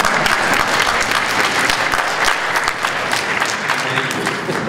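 Audience applauding: a roomful of hands clapping steadily, easing off near the end.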